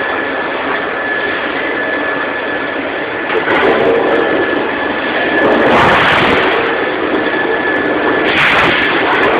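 PETRA DC300A dual-column band saw running as its blade cuts through a 100 mm stainless steel 304 bar. The saw gives a steady mechanical noise with a thin high whine, swelling louder three times: about a third of the way in, just past halfway, and near the end.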